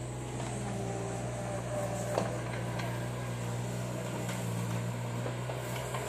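Bobcat E20 mini excavator's diesel engine running steadily with a low drone while the boom and bucket work, with a sharp knock about two seconds in.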